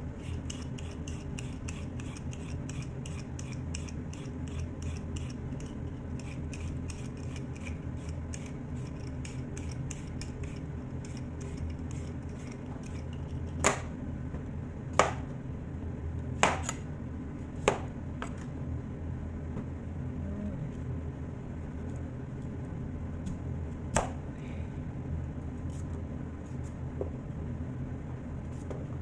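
Y-shaped vegetable peeler scraping the skin off a sweet potato in quick repeated strokes for the first half, then a few sharp knocks of a chef's knife cutting it down onto a plastic cutting board, over a steady low hum.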